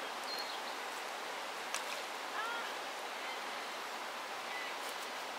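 Steady rush of a shallow river flowing over stones, with a few faint short bird chirps and one brief click about two seconds in.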